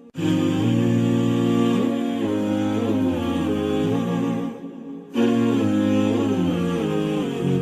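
Wordless a cappella nasheed: hummed vocals carrying a slow, gliding melody over a low held drone. There is a short break in the phrase about five seconds in.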